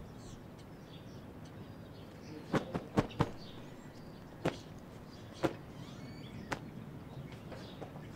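Sharp clicks or knocks over a low background: four in quick succession about two and a half seconds in, then single ones about a second apart, with faint bird chirps.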